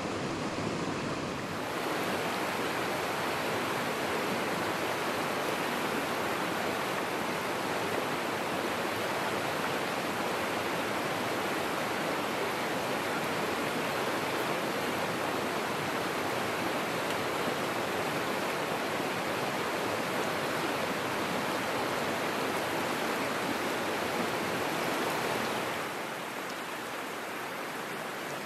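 Small freestone stream rushing over a rocky riffle: a steady, even hiss of moving water that grows a little louder about two seconds in and drops slightly near the end.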